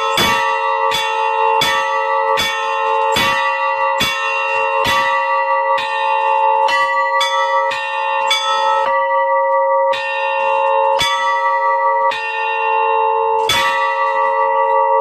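Three antique bells being rung, their clappers striking in a steady rhythm and each stroke ringing on into the next. The strikes come quickly at first, then space out with longer ringing between them.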